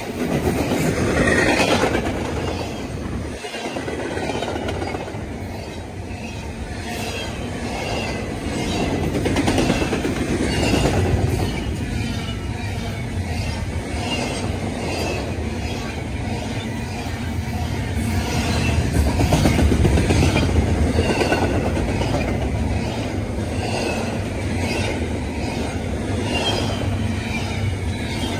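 Double-stack intermodal freight train passing close by at speed: a steady rumble of steel wheels on the rails, with a regular clack as each car's wheels go by, about once a second.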